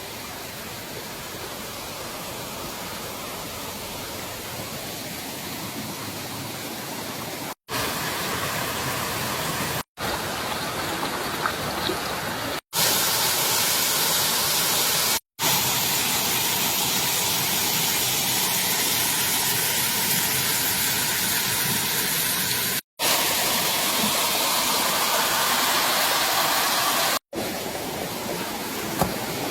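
Water rushing over small waterfalls and down a rocky stream into pools, a steady hiss. It is cut off briefly about six times, coming back louder or softer after each gap.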